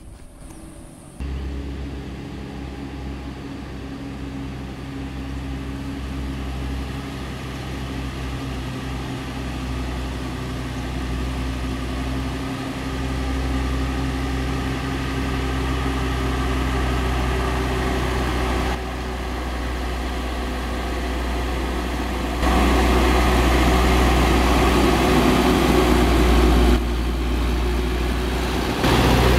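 Mitsubishi Fuso light truck's diesel engine pulling uphill, a steady low hum that grows louder as the truck approaches, with a few sudden jumps in level.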